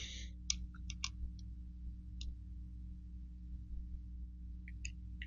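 A few scattered light clicks and taps of small steel gun parts being handled as the shotgun's fore end is fitted and its small screw put in, with a cluster about a second in and another near the end. A steady low hum sits beneath.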